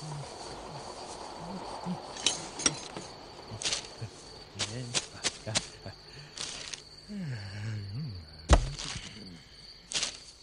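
Cartoon sound effects: a run of sharp clicks and cracks and short low sounds that bend up and down in pitch, with one loud thump about eight and a half seconds in, over a steady high tone.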